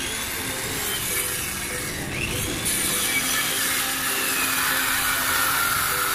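Power tool running and cutting, a steady grinding noise with a wavering whine, over background music.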